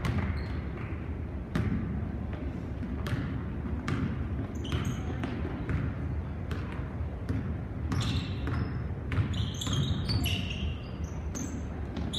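Basketball dribbled on a hardwood gym floor: a steady run of sharp bounces about every two-thirds of a second. Short high sneaker squeaks come in around the middle and again after about eight seconds, over the low din of the gym.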